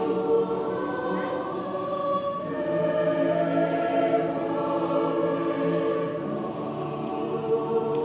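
Mixed-voice choir singing long, sustained chords that shift slowly, on the line "You have found favor with God."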